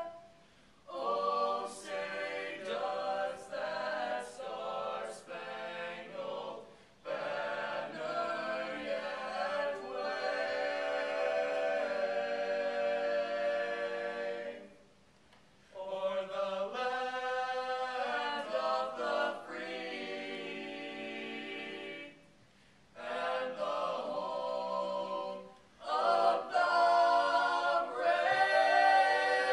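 A small group of young male voices singing together a cappella, in phrases broken by a few short pauses.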